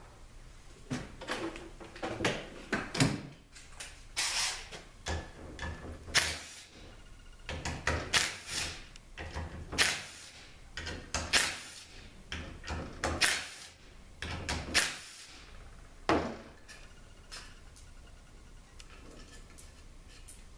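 Cordless impact driver run in a dozen or so short bursts, backing out the bolts that hold an automatic transmission's oil pump halves together. After about 16 seconds, only small clinks of the loose bolts being handled on the steel bench.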